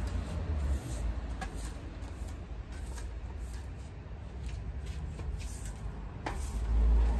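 Broom sweeping leaves and dirt off the ground in irregular brushing strokes, over a steady low rumble.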